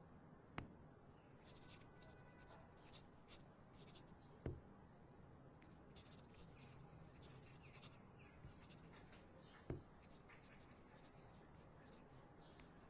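Faint scratching of a pen on paper as a hand writes in short strokes, with three soft knocks spread through the writing.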